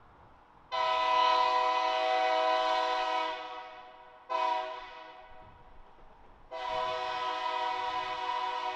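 Diesel locomotive's air horn sounding for a grade crossing: a long blast about a second in, a short blast just after the middle, and another long blast near the end. Each blast is a chord of several notes.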